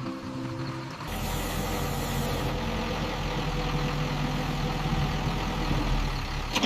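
A truck engine runs, quieter for the first second and then louder and steady with a low rumble. A short hiss comes as it picks up, about a second in.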